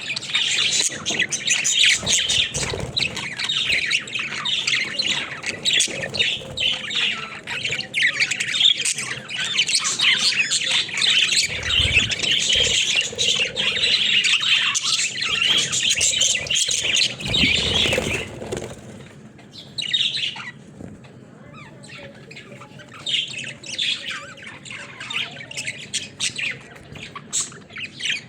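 Budgerigars chattering and squawking in a dense, rapid warble. It turns quieter about two-thirds of the way through, leaving scattered chirps. A few low thumps come in among the chatter.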